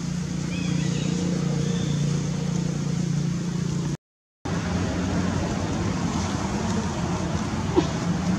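Steady low hum over outdoor background noise, broken by a sudden half-second dropout to silence about halfway through, after which the noise is rougher and more even.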